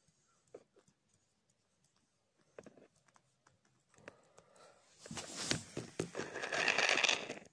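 A few faint clicks and taps, then a dense crackling rustle starting about five seconds in and lasting about two and a half seconds.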